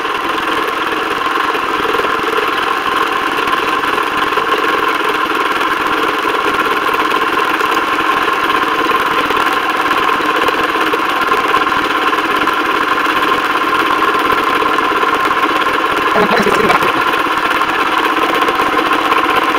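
Vevor 4500 high-pressure PCP air compressor running steadily, pumping air into an air rifle's reservoir as it fills toward 3,000 psi.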